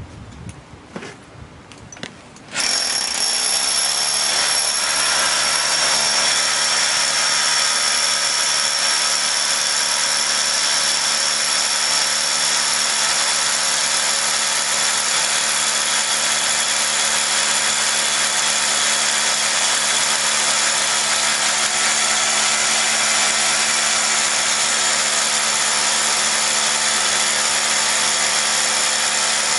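Corded SDS-plus rotary hammer boring into a concrete block with a long masonry bit. It starts suddenly about two and a half seconds in, after a few faint clicks, then runs steadily under load.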